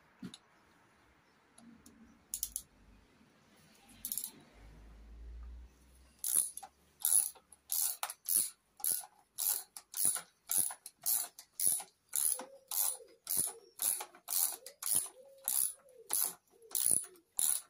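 Ratchet wrench on a long socket extension clicking in quick, even strokes, about two a second, as a nut on the engine is wound off. Before that come a couple of lone clicks and a brief low hum.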